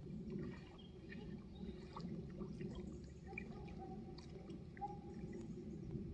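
Lake water sloshing and dripping around a wader standing in the shallows, with scattered small splashes and drips.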